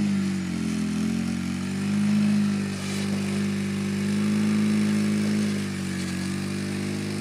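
Polaris RZR side-by-side's engine working under load up a steep rock climb. The revs drop about half a second in, pick back up, and sag again near the end.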